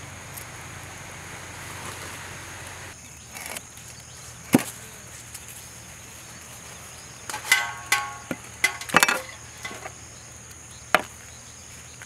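Knife chopping fish on a wooden block: single sharp chops about four and a half seconds in and near the end, with a quick cluster of chops between about seven and a half and nine seconds in.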